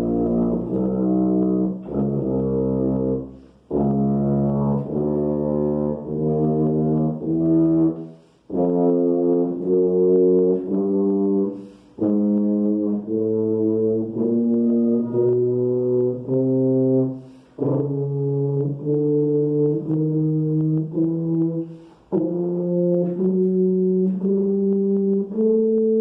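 Yamaha 104 tuba playing chromatic scales by semitones from B-flat, one separate note after another, climbing overall. The notes come in phrases with short breaks for breath every few seconds.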